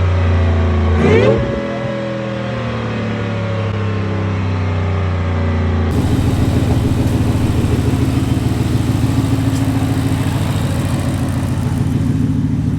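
Whipple-supercharged 5.0 L Coyote V8 of a 2021 Ford F-150 revved once about a second in, the pitch rising quickly and then sinking slowly back. About six seconds in, the sound changes suddenly to the engine running steadily at a low, pulsing note.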